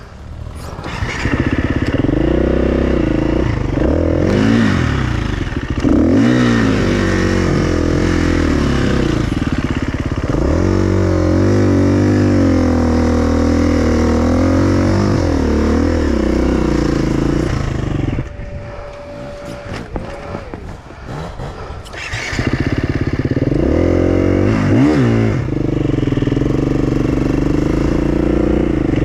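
Enduro dirt bike engine under load, its pitch rising and falling with the throttle. It drops to a quieter low-rev stretch about two-thirds of the way in, then revs up again.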